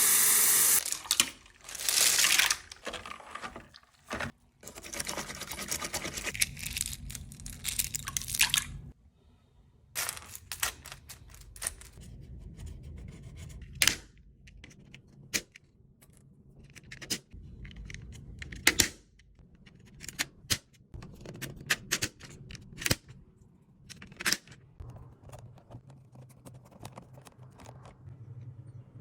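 Computer keyboard being cleaned: a hissing, rubbing noise for the first several seconds, loudest in two bursts near the start. Then scattered clicks and scrapes of the plastic keys as they are wiped and pressed.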